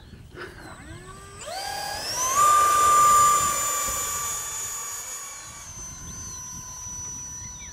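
Small electric ducted fan of a 3D-printed RC jet spooling up to full throttle with a rising whine for a hand launch, then holding a steady high-pitched whine as the jet climbs away, dropping slightly in pitch a little after halfway and slowly fading. Faint bird chirps at the start and near the end.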